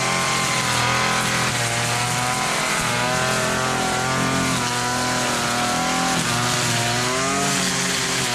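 Hitachi gas string trimmer's engine running at high speed, its pitch rising and falling as the throttle is worked while cutting grass.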